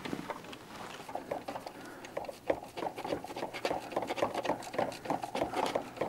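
Handling noise: quick, irregular light clicks and rustles, several a second, as a gloved hand fumbles among engine parts, starting bolts by hand into the new oil filter housing.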